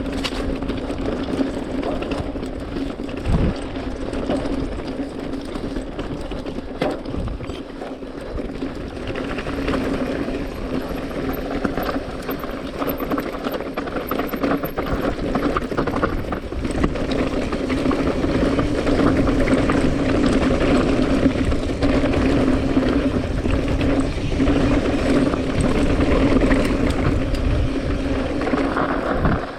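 Small airplane's engine droning at a steady pitch, with wind rushing over the microphone; it grows somewhat louder about a third of the way in.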